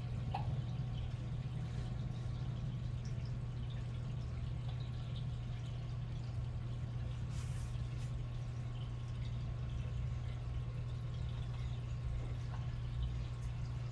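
A steady low hum with faint scattered ticks, and a brief hiss about seven and a half seconds in.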